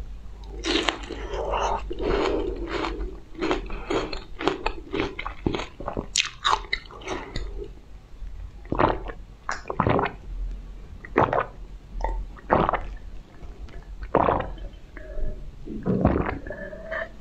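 Close-miked mouth sounds: repeated biting and wet chewing of a soft fruit slice, thinning out after about eight seconds to separate sips, lip smacks and swallows from a glass of drink.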